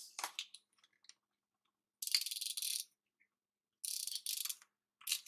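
Paper stickers and sheets being handled on a desk: light taps and rustles, then two crackly rasping strokes of under a second each, and a shorter one near the end.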